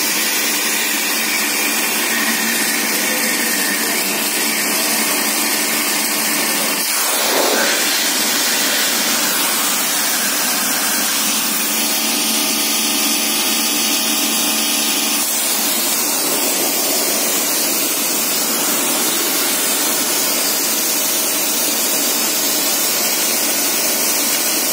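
High-pressure washer running steadily, its water jet hissing as it sprays a radiator core and tiled floor, with a faint steady hum from the pump's motor underneath.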